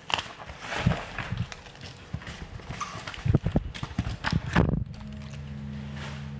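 Unboxing handling of packaging: a run of irregular knocks, taps and rustles. About five seconds in, a steady low hum starts.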